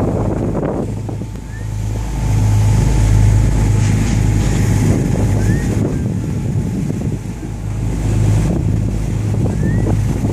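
A fishing boat's engine running steadily under way, with wind buffeting the phone's microphone and water rushing along the hull.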